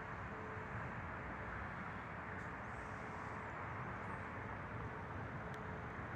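Steady outdoor background rush, an even noise without any distinct event. A faint low tone breaks in and out over it.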